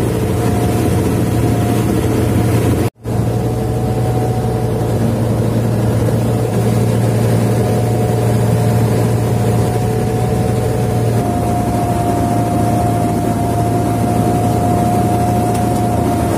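Fishing boat's engine running steadily under way, a low hum with a steady whine above it, over the rush of water along the hull. The sound drops out for an instant about three seconds in.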